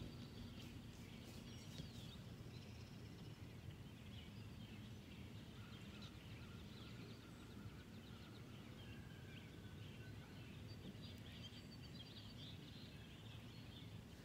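Quiet outdoor ambience: a low steady rumble with small birds chirping faintly.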